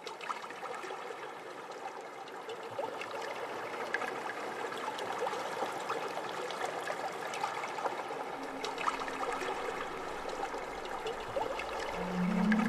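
A steady trickling, crackling noise like running water, part of the film's electronic soundtrack. Near the end a few held musical notes come in and the sound grows louder.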